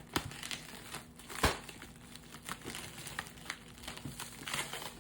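Plastic packaging crinkling and crackling as a parcel is handled and opened, with scattered sharp clicks and one louder snap about a second and a half in.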